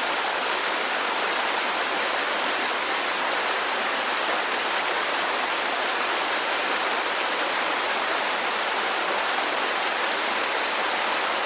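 Garden water fountain running, a steady even splashing of falling water.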